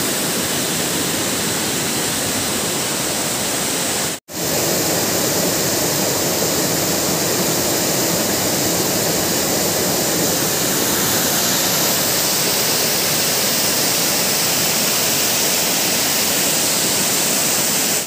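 Waterfall: falling water rushing steadily and loudly, close by. The sound cuts out for a moment about four seconds in, then resumes unchanged.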